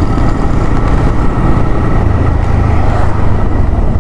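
TVS Raider 125's single-cylinder engine running as the bike rolls along and slows to pull over to the roadside, with a loud, steady low rumble.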